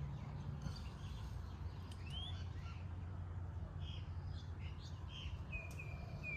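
Faint outdoor bird calls: scattered short chirps, a rising call about two seconds in, and a held call near the end, over a steady low hum.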